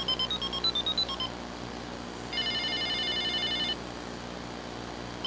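Blue plastic toy telephone playing its electronic sounds as its buttons are pressed: a quick run of short beeps at changing pitches in the first second or so, then a fast warbling ring lasting about a second and a half.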